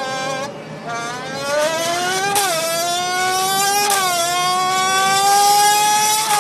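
A Formula 1 engine imitated with a can: a loud buzzing tone that stops briefly near the start, then rises in pitch. It falls sharply twice, about 2.5 and 4 seconds in, like an upshifting race car, and climbs again after each drop.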